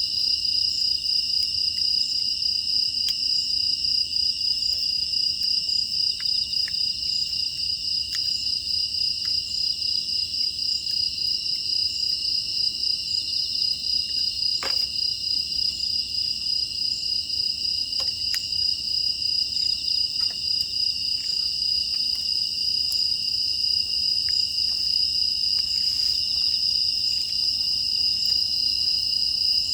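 A dense, steady chorus of crickets and other grass insects chirping, with scattered small crackles and pops from a wood fire, two of them sharper about halfway through.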